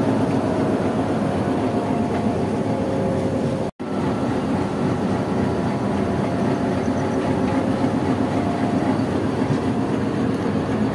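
Passenger train rolling slowly over the rails, heard from the coach doorway: a steady rumble with a low engine drone. The sound drops out for an instant about four seconds in.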